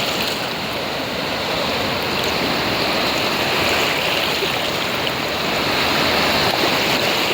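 Sea surf washing in at the shore: a steady rush of water that swells gently over the first few seconds.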